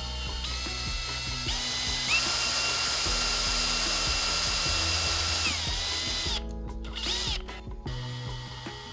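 Small electric drill whining as its twist bit bores into a metal airsoft gearbox shell. It speeds up in steps over the first two seconds, holds a steady pitch, then winds down about six seconds in. It starts briefly again about seven seconds in and runs once more near the end.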